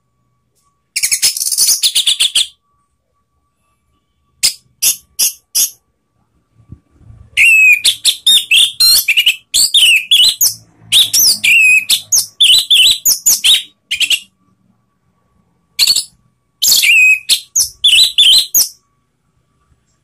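Orange-headed thrush (anis merah) singing loud phrases of sharp, sweeping whistled notes. A dense burst comes about a second in, then a few short notes, a long rapid run of notes through the middle, and two shorter phrases near the end, with quiet gaps between them.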